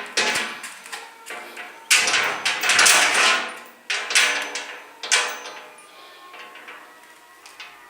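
A door banged and knocked repeatedly by a dog pushing at it with its paw, a series of loud irregular knocks with a ringing tail, growing fainter after about five seconds.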